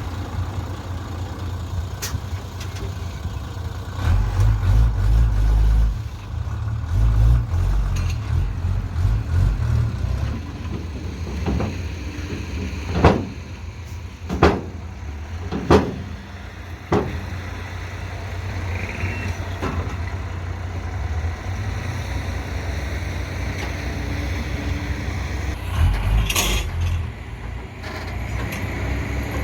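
Backhoe's diesel engine running and revving up under load in swells, with four sharp knocks about halfway through.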